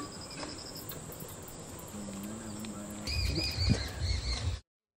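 Rural outdoor ambience with birds: a quick high trill just after the start, then a run of short, arched calls repeating from about three seconds in over a low rumble, before the sound cuts off abruptly.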